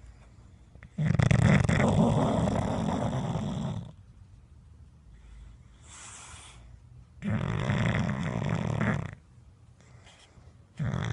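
A bulldog snoring in sleep. There are long snores of two to three seconds each: one about a second in, another about seven seconds in, and a third starting near the end. A soft airy breath falls between the first two.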